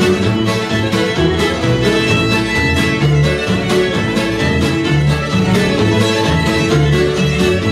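Live old-time string band playing, with the fiddle leading over strummed guitar and mandolin chop and upright bass notes, in a steady rhythm.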